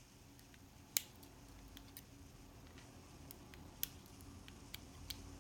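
A few sharp, light clicks of small metal lock parts (spool pins and springs from a gutted padlock) being handled, the strongest about a second in, over a faint low hum of road noise.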